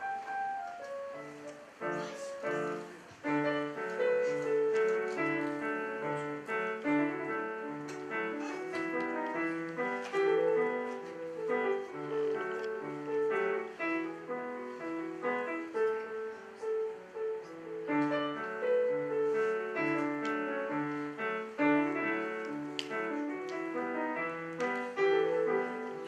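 Digital piano played solo: a piece in a steady rhythm, with a repeating bass figure under a melody in the middle register.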